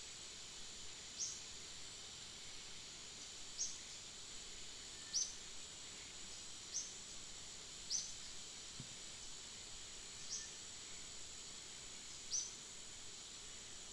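Outdoor ambience of insects droning steadily at a high pitch, with a short, high, falling chirp repeating every one to two seconds.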